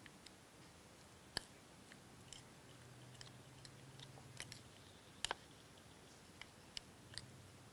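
Faint, scattered wet clicks and squelches of minced prawn and pork filling being mixed together, with near silence between them.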